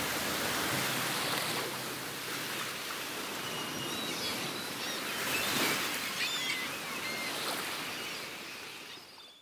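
Sea surf washing in a steady hiss, with several short bird calls in the middle seconds; the sound fades out at the very end.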